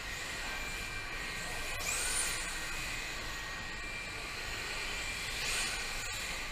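Electric motors of radio-controlled drift cars whining as they run, the whine climbing in pitch and levelling off twice as the cars accelerate, about two seconds in and again over five seconds in.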